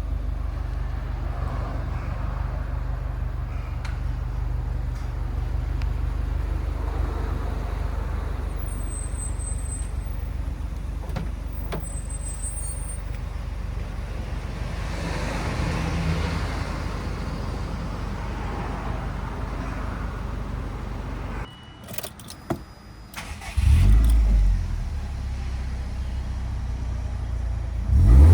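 Subaru Impreza STI (GDB) turbocharged flat-four idling steadily through an aftermarket FGK exhaust. About two-thirds of the way in it is switched off, a few clicks follow, and then it is restarted, catching with a brief flare of revs before settling back to idle.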